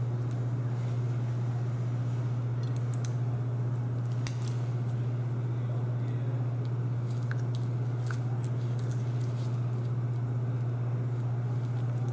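Steady low hum throughout, with a few faint scattered clicks from the metal needle holder and forceps handling a suture needle.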